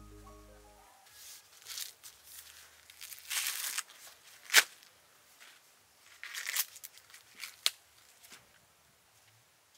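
Husks and silk being torn off a fresh ear of sweet corn by hand: bursts of rustling and ripping, with a sharp snap about four and a half seconds in and a few lighter clicks.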